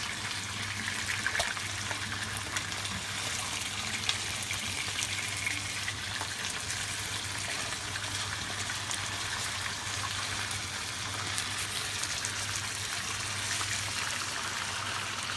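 Pieces of marinated tuna frying in hot oil in a pan: a steady sizzle with small crackles and pops throughout, the fish searing on high heat to firm up both sides. A low steady hum sits underneath.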